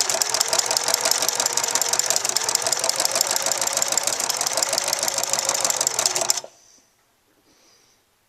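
Singer sewing machine running fast with a ruffler foot attached, a rapid, loud, even clatter of the needle and the ruffler's pleating blade that stops abruptly about six seconds in.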